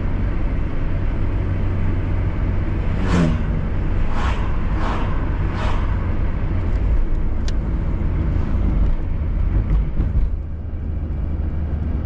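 Steady low rumble of a car driving on a highway, heard from inside the car. Four brief whooshes come between about three and six seconds in, and the rumble eases slightly about ten seconds in.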